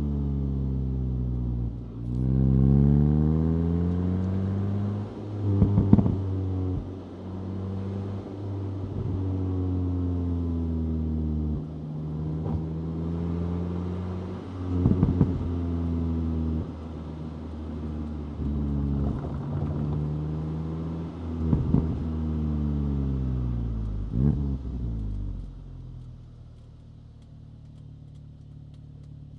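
Stock 2025 VW Golf GTI 8.5's turbocharged 2.0-litre four-cylinder engine pulling up through the revs and coming back down several times, with short bursts of exhaust crackles and pops at the peaks. Near the end it settles to a quieter, steady idle.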